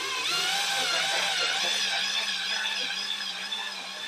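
A freshly rebuilt Maytag orbital washer transmission being run on test: a steady whirr with a higher whine that wavers up and down in pitch.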